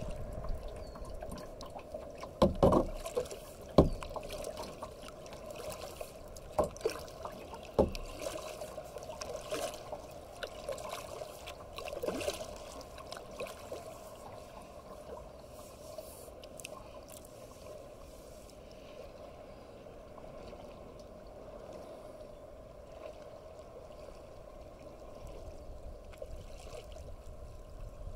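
Water lapping and trickling against a kayak's hull as it is paddled, with a few sharp knocks or slaps in the first half, then only a steady low wash.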